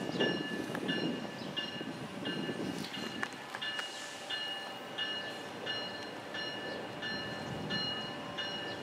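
A bell dings steadily about twice a second over the fading rumble of a departing train.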